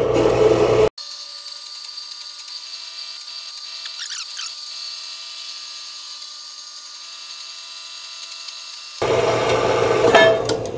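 Portable horizontal metal-cutting bandsaw with a new blade running and cutting through 1-1/2 inch square steel tube. About a second in the sound drops and turns thin and high-pitched, with no low hum, then comes back fuller near the end.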